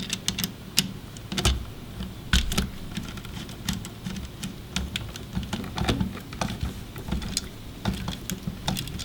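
Irregular small clicks and knocks of a screwdriver working on a GFCI outlet, tightening the white wire down under the silver line-side terminal screw.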